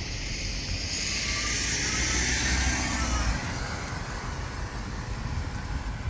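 A car passing on the street: tyre and road noise swells over a couple of seconds and fades away, over a low wind rumble on the microphone.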